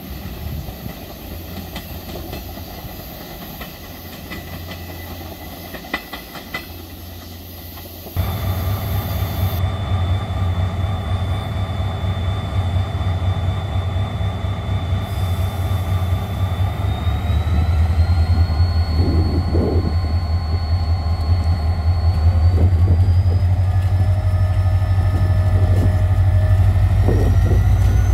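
KORAIL diesel locomotive no. 7409 hauling a passenger train, its engine running with a loud low rumble that grows louder as it draws near. The engine's whine steps up in pitch twice as the throttle is notched up. Before that, for the first few seconds, there is only quieter station background with a few clicks.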